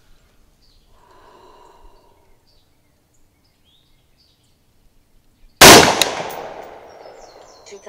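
A single service-rifle shot about five and a half seconds in: a sharp crack followed by a ringing echo that dies away over about two seconds.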